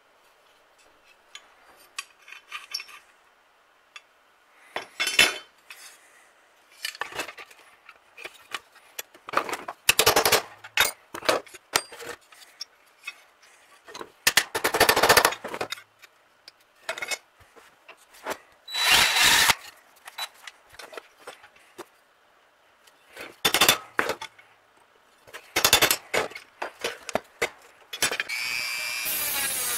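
Irregular clicks, knocks and short scraping bursts of tool work taking apart an old metal toy tractor. Near the end a power tool starts and runs steadily.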